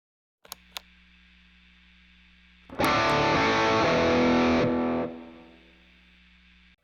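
Electric guitar through a Caline Pure Sky overdrive pedal: a single overdriven chord struck and held for about two seconds, then dying away. Before and after the chord there is a low steady amp hum, with two sharp clicks as the hum comes in.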